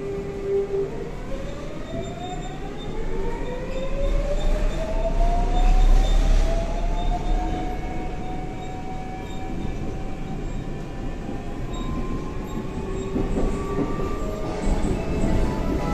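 GTO VVVF traction inverter of a Seoul Line 4 4000-series (Daewoo/Alstom) subway car whining, its pitch rising in a stack of tones for several seconds as the train accelerates, then levelling off. Under it the steady rumble of the car running on the track.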